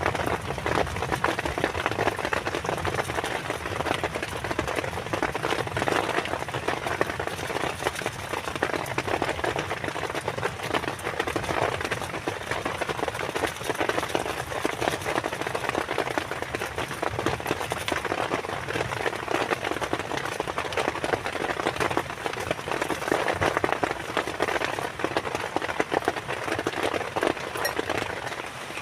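Heavy rain falling steadily: a dense, even hiss of countless drops hitting.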